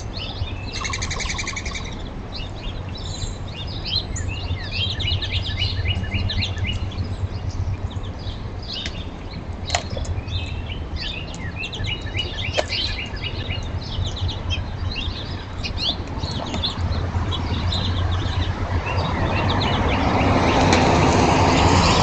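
Small birds chirping and twittering repeatedly with short high calls and trills. Over the last few seconds a vehicle's noise swells louder, passing by.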